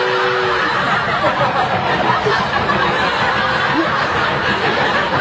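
A crowd laughing and chuckling together, a dense, steady wash of many voices with no single speaker standing out.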